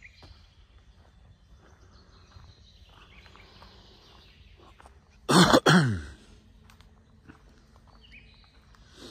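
A person coughs twice in quick succession about five seconds in, loud against faint outdoor background noise.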